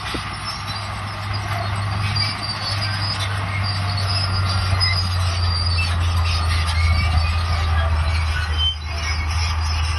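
Crawler bulldozer's diesel engine running steadily, with short high squeals and squeaks from its steel tracks at intervals.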